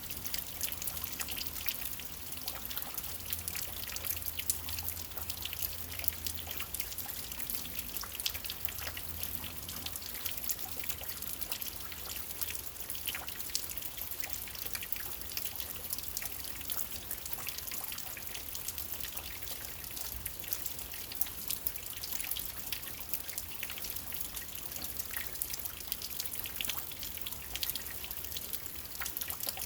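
Steady rain falling, a dense patter of drops with dripping and trickling water.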